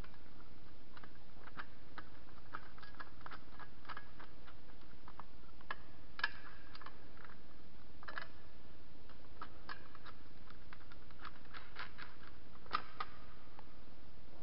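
Small metal licence-plate hardware (bolt, nut and washer) clicking and tapping as it is handled and fitted by hand: scattered light ticks, with a few sharper clicks about six, eight and thirteen seconds in, over a steady background hiss.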